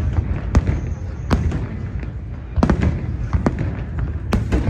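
Fireworks shells bursting in a large aerial display: several sharp bangs at irregular intervals over a continuous low rumble.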